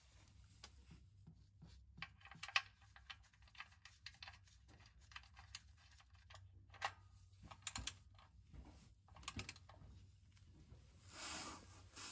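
Faint scattered clicks and light metallic taps as the oil drain plug is threaded back into the oil pan by a gloved hand and a ratchet and socket are fitted to it. Later come a couple of quick runs of clicks, like a ratchet's pawl, and a soft rustle near the end.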